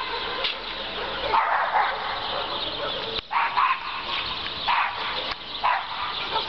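A small dog barking in short yaps, about four times in a few seconds.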